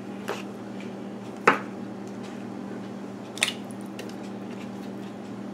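Slices of smoked sausage dropped into the seasoned liquid in a slow cooker: three short sounds, the loudest about a second and a half in, over a steady low hum.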